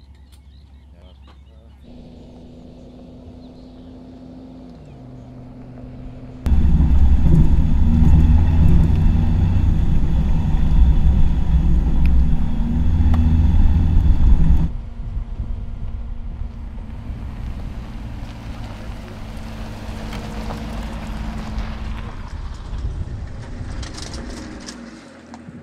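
Mercedes-Maybach G 650 Landaulet's twin-turbo V12 running as the truck drives over a dirt track, with tyre noise. For about eight seconds in the middle it is much louder and closer, starting and stopping abruptly. On either side it runs quieter and steady, and its pitch falls away near the end.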